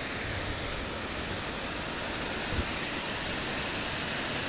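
Steady rush of water pouring over a low river weir, with one soft knock about two and a half seconds in.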